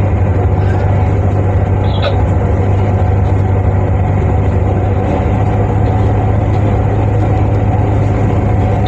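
Tugboat's diesel engine running steadily, a loud low drone heard on deck while the boat manoeuvres. A brief high squeak sounds about two seconds in.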